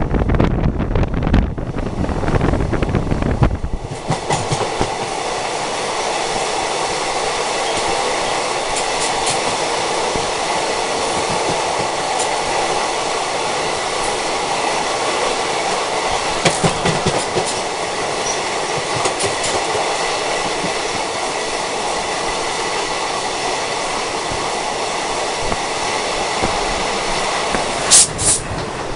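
Passenger train running past on the adjacent track at close range, heard from a moving train: a steady rush of wheels and air with scattered clacks from rail joints. For the first few seconds wind buffets the microphone. Near the end there are a few sharp knocks as the locomotive goes by.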